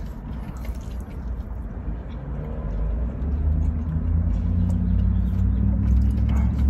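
Low engine rumble of a motor vehicle, growing louder from about two seconds in.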